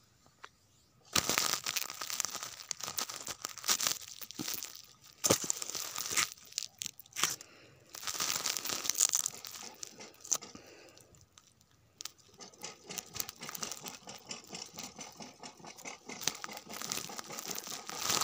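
Close rustling and crackling of dry crop litter against the microphone of a phone lying on it, in irregular bursts. The crackling drops out briefly about eleven seconds in, then carries on fainter.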